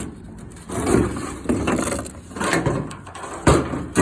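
Handling noises as the old and new oil filter housings are picked up and moved: a string of short rustling, scraping bursts and a sharp knock about three and a half seconds in.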